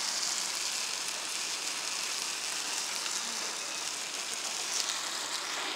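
Stir-fried noodles sizzling on a hot iron sizzling platter: a steady hiss.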